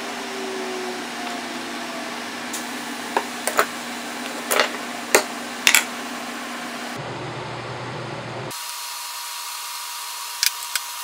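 Light, sharp taps of a hammer on an awl, marking drill points on an end-grain cutting board. The taps come in short clusters of one to three, over a steady shop hum.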